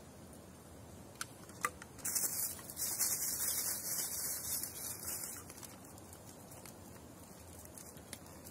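Brown paper wrapping crinkling and rustling as it is handled, for about three seconds starting around two seconds in, after a couple of light clicks.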